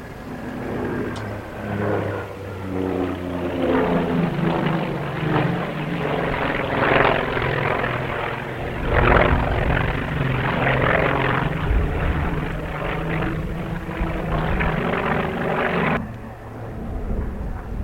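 Propeller airplane flying by at an air show, its engine drone shifting in pitch as it passes. The sound changes abruptly near the end.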